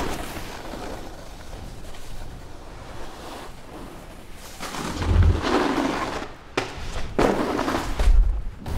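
Snowboard sliding and scraping over snow, getting louder in two rushes in the second half, with dull low thumps about five and eight seconds in.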